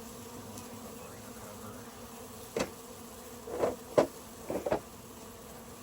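Carniolan honeybees in a package buzzing steadily, with a few sharp wooden knocks from hive parts being handled from about halfway through, the loudest a little after the middle.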